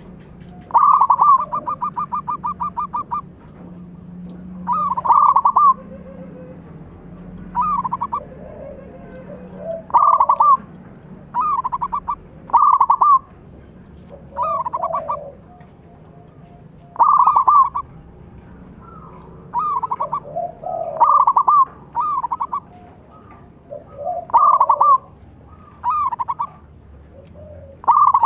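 Zebra dove (perkutut) cooing over and over: about a dozen phrases, each a quick stuttering run of notes, a few seconds apart; the first, about a second in, is the longest.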